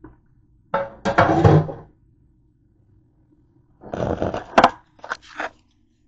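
Handling noise: two spells of knocking and scraping, one about a second in and one around four seconds in. The second comes as a hand grabs the recording phone and moves it.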